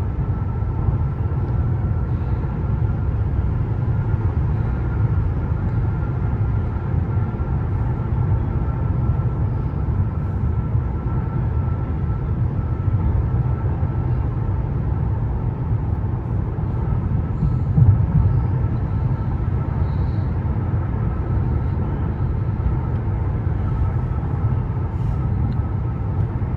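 Steady low engine and road rumble inside the cabin of a Mercedes-Benz S580 cruising, with a faint steady whine over it. A brief louder thump about two-thirds of the way through.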